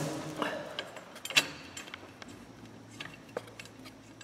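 A few scattered light metallic clinks and taps from crash-bar hardware and tools being handled, the sharpest just under a second and a half in.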